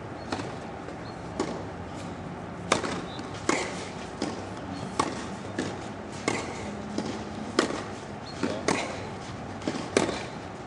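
Tennis rally: a ball struck back and forth with rackets, the sharp hits a little over a second apart, with lighter bounces of the ball on the court between them.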